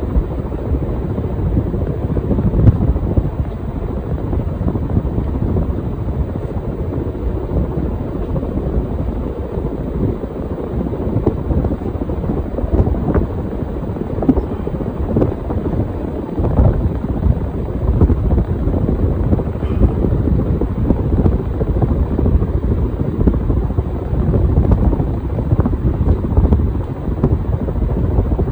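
Casablanca Spirit of Saturn ceiling fan running with four blades, its moving air buffeting the microphone as a loud, unsteady low rumble.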